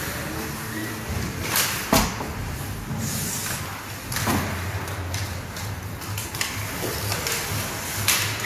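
Sharp knocks of hockey sticks and the puck during ice hockey play: a handful of separate cracks, the loudest about two seconds in, over a steady low arena hum.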